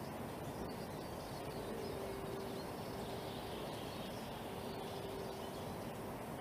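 Low, steady background noise with a faint hum that fades in and out a few times.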